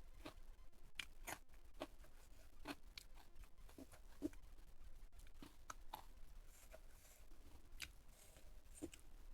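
Faint, close-miked eating sounds: a string of short, irregular crunches and clicks as crispy food is bitten and chewed.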